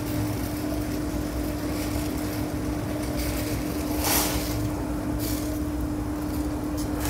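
Water at a rolling boil in a steel pot of blanching spinach on a gas burner: a steady bubbling rumble over a constant low hum. About four seconds in there is a brief louder splash as a silicone spatula stirs the leaves.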